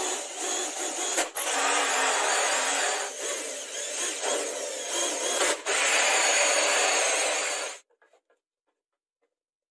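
Cordless drill driving a hole saw through a small wooden block: a steady grinding cut with a couple of brief dips, stopping suddenly about eight seconds in.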